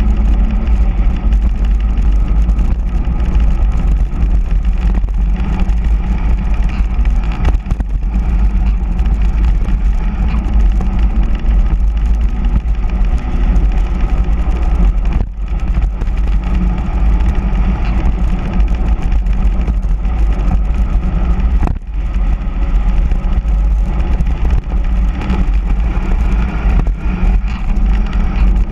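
Wind blasting the camera microphone on a fast mountain-bike descent, a loud, steady low rush, with the hum of hard-inflated all-terrain tyres on asphalt beneath it. The rush dips briefly twice.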